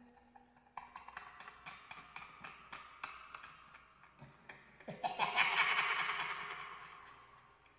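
Horror sound effects: a run of irregular sharp clicks and taps, then a loud noisy rush that swells about five seconds in and slowly fades out.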